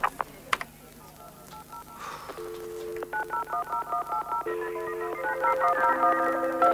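Telephone tones: a couple of clicks, then short held two-tone notes and quick runs of keypad (DTMF) beeps at shifting pitches, layered more and more densely and getting louder.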